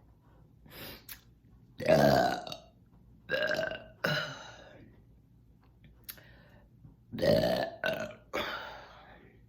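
A woman burping again and again, about six burps with pauses between, the loudest about two seconds in and again about seven seconds in. She is straining to bring up trapped gas from a full, tight stomach.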